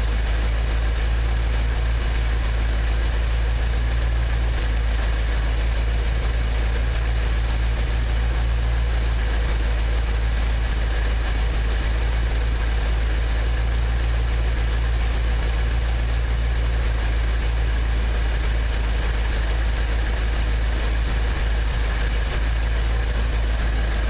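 1986 Chevy truck's Quadrajet-carbureted engine idling steadily. The owner judges it to be running pretty good after he set the choke's vacuum pull-off to open the choke less.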